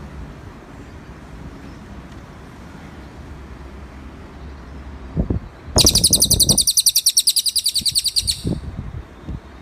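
Cililin songbird singing one fast, high trill of evenly repeated notes, about two and a half seconds long, starting about six seconds in. A few low thumps just before it.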